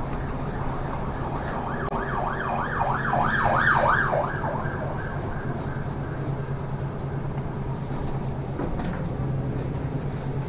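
An emergency vehicle's siren in a fast up-and-down yelp, about three sweeps a second, swelling to its loudest about four seconds in and fading out by five seconds. It is heard from inside a city bus, over the bus's steady engine hum.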